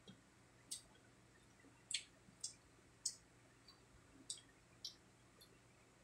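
Close-up eating sounds: mouth clicks and smacks while chewing crispy fried pork cheek, about seven short, sharp clicks spaced irregularly.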